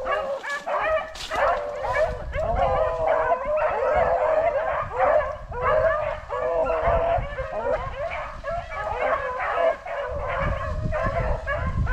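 A pack of rabbit hounds baying without a break, several dogs' voices overlapping, as they run a rabbit's track through heavy cover.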